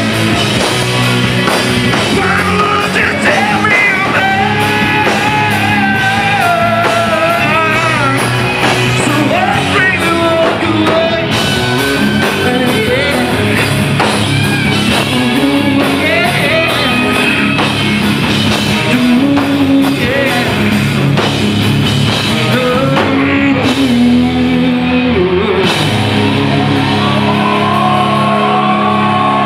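Live rock band playing loud: electric guitars, bass guitar and drums, with a male vocalist singing over them.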